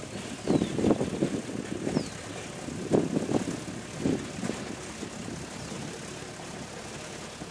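Massey Ferguson 275 tractor's diesel engine running as it works the field, with irregular loud surges of rumble over the first four seconds or so, then steadier.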